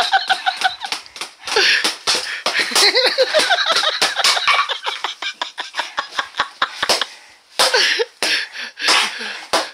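Empty plastic bottles beaten as makeshift taiko sticks: rapid, uneven sharp whacks, mixed with shouting and laughter.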